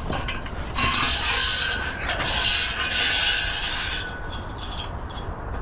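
Metal fitting on a Blakes brick profile being undone and taken off: dense, rapid mechanical clicking and rattling for about four seconds, then a few lighter ticks.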